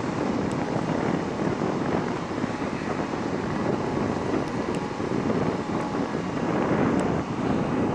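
Steady noisy rumble of wind on the microphone, mixed with the low running noise of a large passenger ferry sailing past close by.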